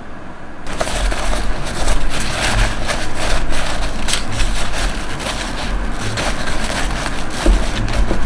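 Kitchen paper towel rustling and crinkling as it is rubbed over smoked meat on a wire grate, with small scrapes and low bumps from the hand, starting about a second in. It is the routine wiping-off of moisture partway through smoking.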